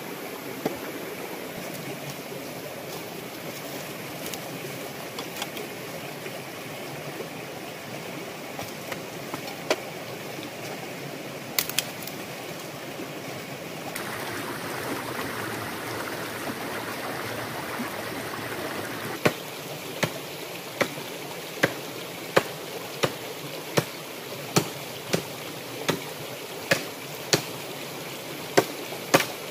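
Clear, shallow stream running steadily over rocks. In the last third a regular series of sharp knocks comes in, about one every 0.7 s, louder than the water.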